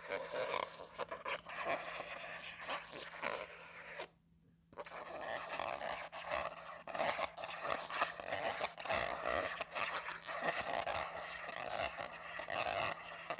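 Comb teeth scraped back and forth across a sheet of calendar paper, a continuous dry scratching with a brief pause about four seconds in.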